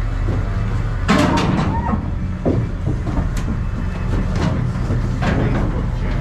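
Knocks and clanks from a metal livestock trailer as cattle move inside it and its gate is handled, over a steady low engine hum. The loudest clatter comes about a second in, with single knocks after it.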